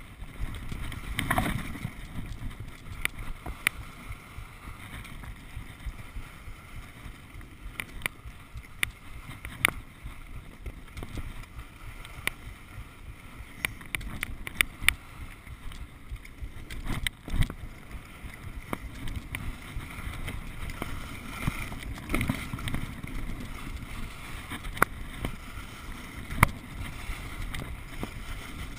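Skis sliding and scraping over groomed snow during a downhill run: a steady rushing noise with wind on the microphone, broken by scattered sharp clicks and knocks.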